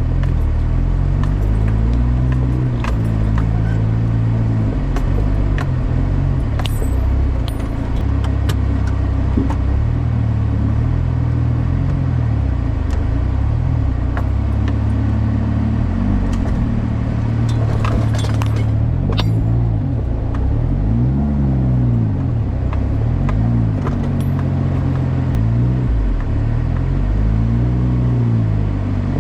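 Car engine and road noise while driving, the engine's pitch rising and falling repeatedly, with light clicks and rattles.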